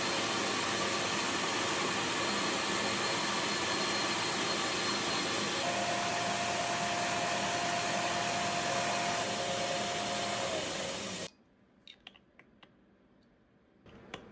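Gas torch flame hissing steadily while annealing brass valve port tubes, shut off abruptly about 11 seconds in, followed by a few light metallic clicks.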